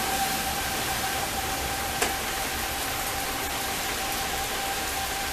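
Steady hiss of heavy rain, with a distant Federal Signal 2001-SRNB outdoor warning siren holding one steady tone underneath. A single sharp crack stands out about two seconds in.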